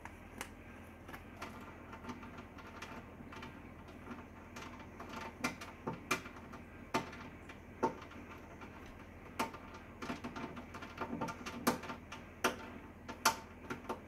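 A green-cheeked conure's beak tapping and pecking at the inside of a microwave oven: a run of irregular sharp clicks, sparse at first and coming thicker and louder in the second half.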